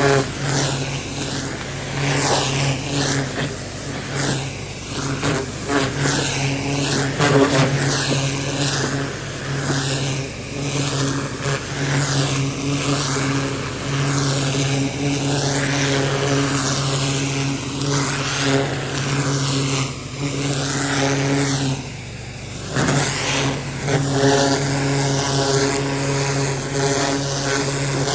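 Pressure washer running: a steady motor hum under the loud hiss of the water jet blasting gravel and lava rock, the hiss swelling and fading as the spray is swept back and forth. The hum dips briefly about three-quarters of the way through.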